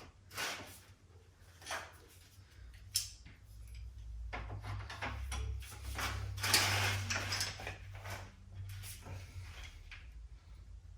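MaxLine aluminium-lined plastic air-line tubing being handled and straightened by hand: irregular rubbing, scraping and knocking sounds, with a sharp knock about three seconds in. A low steady hum runs under the second part.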